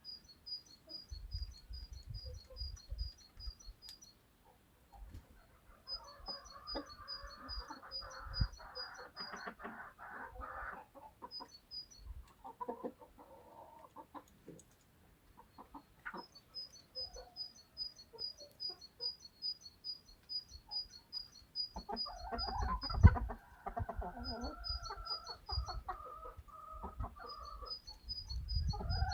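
Chickens clucking and calling, with two longer drawn-out calls, one about six seconds in and one near the end. Runs of rapid, high ticking chirps come and go throughout, and there are low thumps now and then.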